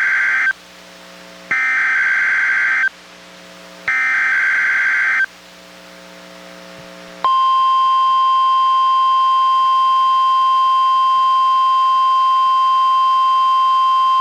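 NOAA Weather Radio SAME digital header bursts: the end of one, then two more harsh, buzzing data bursts about a second and a half long, a second apart. About seven seconds in, the steady 1050 Hz warning alarm tone starts and holds, signalling a test of the radio's warning alarm.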